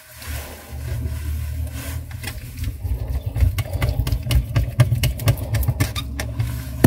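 A gloved hand rubbing and knocking right against the phone's microphone, giving rapid crackling clicks that grow busier about halfway through, over a steady low hum.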